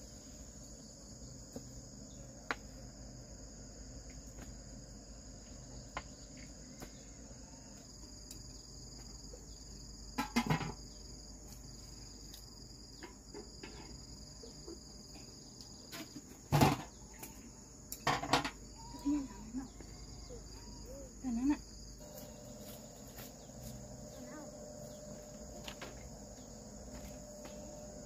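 Steady, high-pitched insect chorus of crickets, with a few sharp knocks and clatters in the middle, the loudest about two-thirds of the way in.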